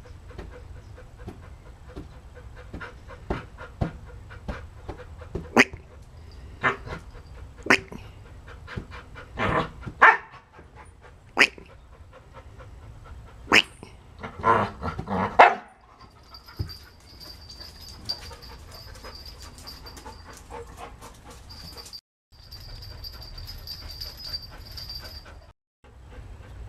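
A small dog barking and yipping in sharp single barks about a second apart, bunching into quicker runs around ten and fifteen seconds in; after about sixteen seconds the barking stops.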